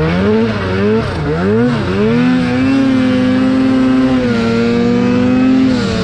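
Turbocharged 2019 Arctic Cat M8000 Mountain Cat 800 snowmobile's two-stroke twin engine under throttle, pulling through deep powder. It revs down and up twice in the first two seconds, is held at a steady high rev for about three seconds, then drops off near the end.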